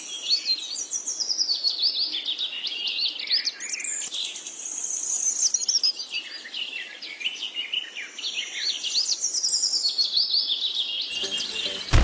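A chorus of small songbirds chirping and twittering, many short rising and falling chirps overlapping without a break.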